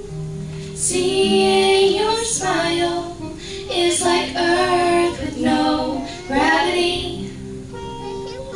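A female voice singing a song live, accompanied by acoustic guitars. The sung phrases start about a second in, and near the end the guitar carries on with little singing.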